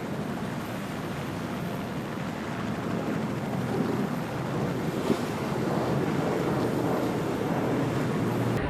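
Wind buffeting the microphone over rushing sea water, with a faint steady low hum underneath. The sound changes abruptly near the end.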